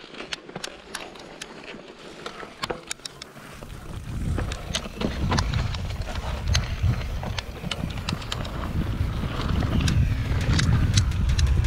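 Mountain bike rolling down a dirt forest trail: sharp clicks and rattles from the bike as the tyres go over stones and roots. About three and a half seconds in, wind rumble on the microphone comes in and grows as the bike picks up speed.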